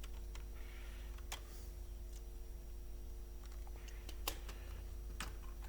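Scattered sharp clicks and taps from handling a laptop's plastic case and small parts, the loudest a little past four seconds in, over a steady low electrical hum.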